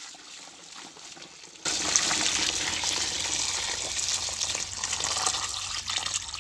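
Water poured in a steady stream onto wet straw in a plastic drum, an even splashing gush that suddenly gets much louder about one and a half seconds in.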